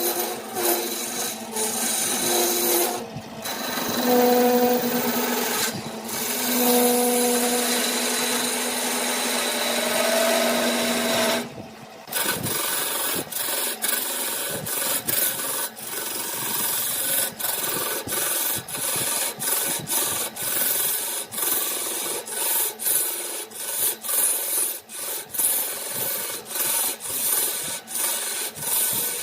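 Woodturning on a lathe: a cutting tool scrapes against the spinning workpiece. For the first dozen seconds a steady pitched hum runs under the scraping. After that the scraping comes in short strokes with brief breaks.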